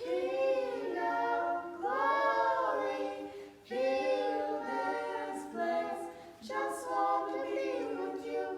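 Gospel vocal group singing a cappella, several voices in long, held phrases with short breaths between them.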